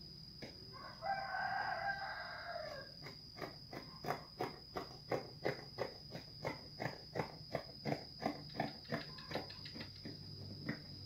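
A rooster crows once about a second in. Then scissors snip through lace fabric in a steady run of about three cuts a second, over a constant high insect trill.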